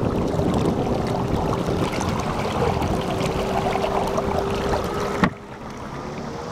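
Water churning and splashing in the prop wash of a 12-volt MotorGuide trolling motor pushing a pedal boat, with a faint steady hum underneath. The splashing drops away abruptly about five seconds in.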